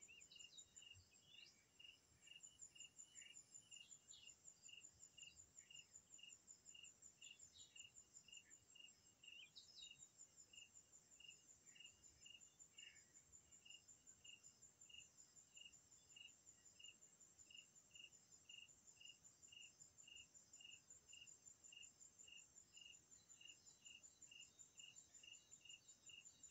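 Faint insects: a high chirp repeating evenly about one and a half times a second over a continuous, very rapid higher-pitched trill, with a few short faint calls scattered through the first half.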